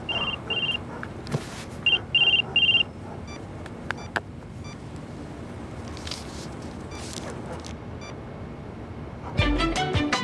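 Short, high electronic beeps, two and then three in quick succession within the first three seconds, over a steady background noise. Music comes in near the end.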